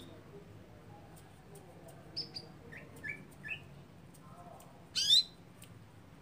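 Caged canary giving short call notes: a brief high chirp, then three quick notes, and about five seconds in a loud, fast upward-sweeping call.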